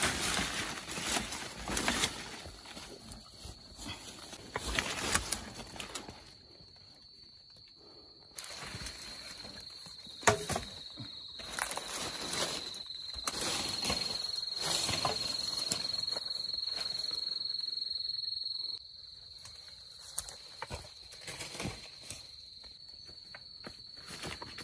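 Animal sounds in short loud bursts over a steady high-pitched drone, which drops out and returns abruptly a few times.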